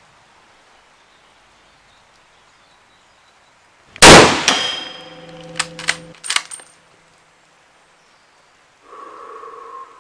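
A single shot from a Carcano M91/41 bolt-action rifle in 6.5×52mm Carcano, very loud and followed by a ringing tail, about four seconds in. Some two seconds later come four sharp metallic clicks and clinks as the bolt is cycled for the next round. Near the end, a brief steady tone lasting about a second.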